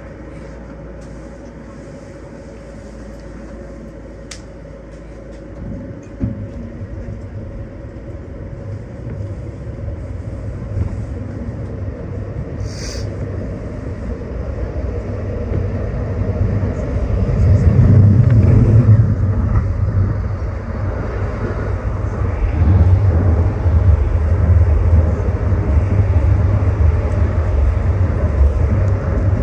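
Calgary CTrain light-rail car in motion, heard from inside: a steady hum with a low rumble from the wheels and track. The rumble builds from a few seconds in and stays loud through the second half.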